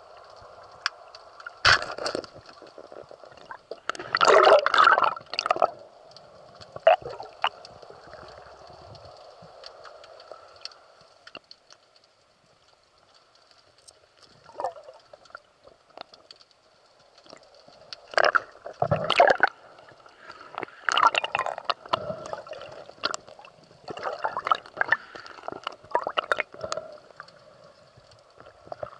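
Water gurgling and bubbling in irregular bursts, with a few sharp clicks, over a faint steady hum.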